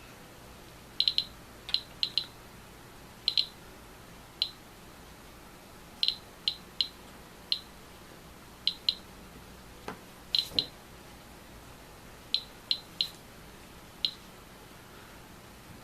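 Geiger counter clicking at random intervals, about twenty short sharp clicks, as lens elements are checked for thorium-dioxide radioactivity. A soft knock comes partway through.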